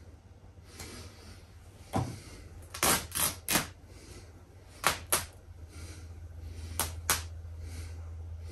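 The fabric and seams of a large stuffed plush horse tearing in about eight short rips, mostly in quick pairs or threes, as it is pulled apart by hand. A steady low hum runs underneath.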